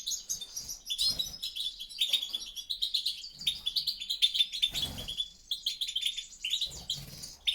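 European goldfinches twittering and chirping in fast, overlapping phrases of high notes.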